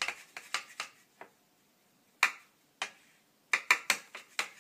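A paintbrush knocking and clicking against a hard palette and water pots while paint is mixed: sharp light taps in uneven clusters, several in the first second, two single taps in the middle and a quick run of about five near the end.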